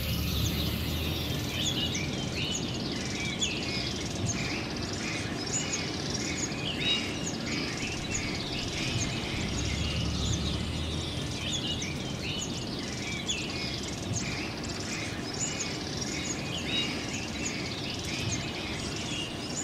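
A chorus of many small birds chirping continuously, over a steady low background noise.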